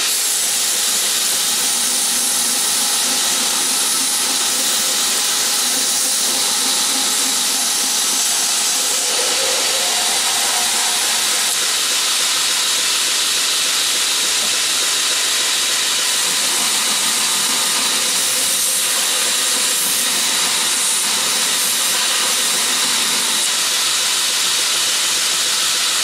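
2x72 belt grinder running steadily, its abrasive belt giving an even, loud hiss.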